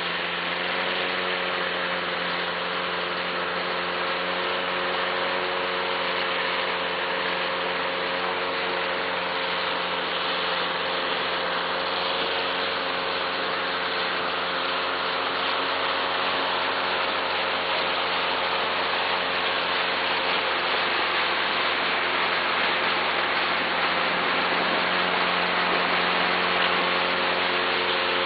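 An engine running steadily at a constant speed, with a steady hum over a loud mechanical hiss.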